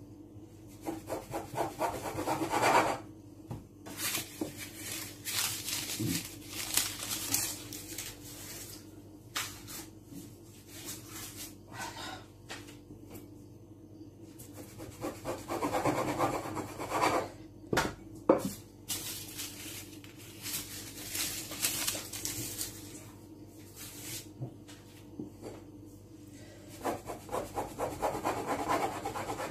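Rim of an upturned drinking glass pressed and twisted through rolled-out doughnut dough onto a floured countertop: a scraping rub in three bursts of quick strokes, with a few sharp knocks in between.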